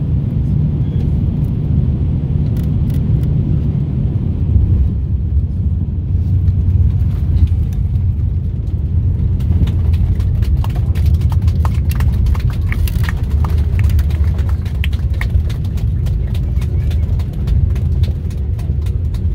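Airliner cabin noise on landing: a steady low rumble of the engines and rushing air. About halfway through, many rapid rattles and clicks join it as the wheels touch down and roll along the runway.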